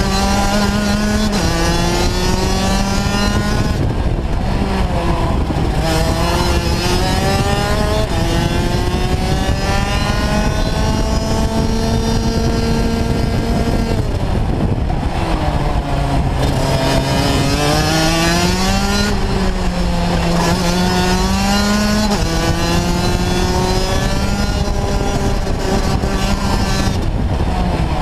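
Rotax Max DD2 125 cc two-stroke kart engine at racing speed, heard on board. Its note climbs in long rising glides and drops back as the kart slows for corners, several times over.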